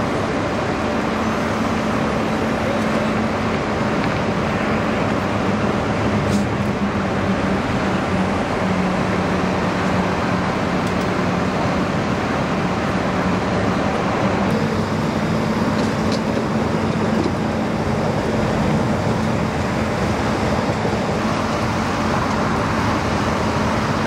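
Steady freeway traffic noise with the low hum of an idling emergency vehicle's engine. The hum drops slightly in pitch for a few seconds partway through, then returns.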